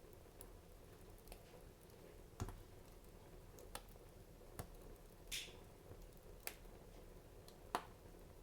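Wood fire crackling in a fireplace: sparse, irregular pops and snaps about one a second over a faint steady background, with a short hiss about five seconds in and the sharpest snap near the end.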